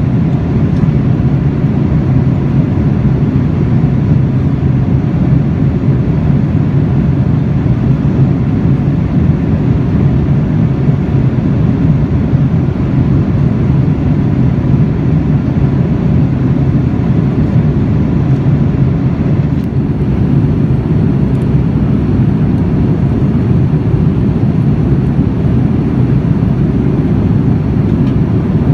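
Steady cabin noise of a Boeing 787-9 in flight, heard from inside the cabin at a window seat over the wing: an even, deep rush of airflow and engine noise with a faint steady hum above it.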